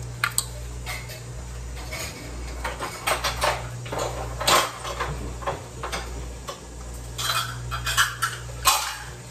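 Metal measuring utensils and other kitchen utensils clinking and clattering in irregular bursts as they are put away in a drawer, over a low steady hum.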